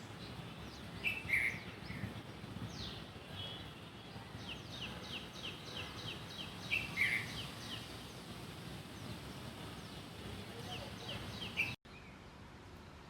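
Small birds chirping and calling over steady outdoor background noise, with a quick run of downward-sweeping notes about four seconds in. The sound drops off suddenly near the end.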